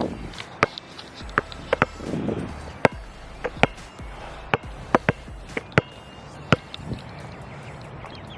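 A basketball bouncing on an outdoor court: about ten sharp, irregularly spaced bounces.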